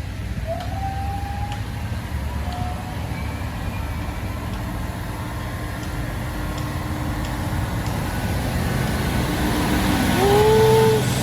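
Bus engine running with the notes of a basuri bus horn: a faint rising horn note about half a second in and a few faint short notes after, then a loud horn blast near the end whose pitch rises as it starts and then holds for about a second.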